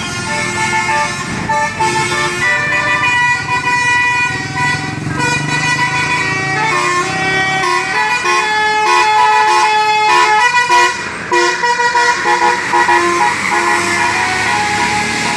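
Telolet basuri musical bus horn playing a tune, its notes held and stepping up and down in pitch, with vehicle engine noise underneath.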